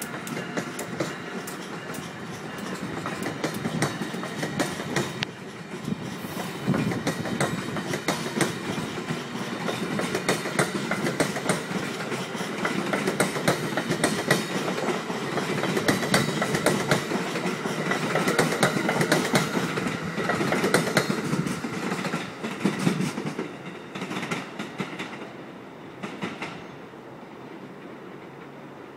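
Amtrak passenger cars rolling past, their steel wheels clicking rhythmically over rail joints with a steady rumble underneath. The clatter fades over the last few seconds as the end of the train moves away.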